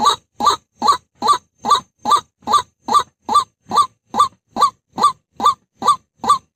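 White-breasted waterhen lure call: a steady run of short 'ruak' notes, about two and a half a second, each rising then dropping in pitch.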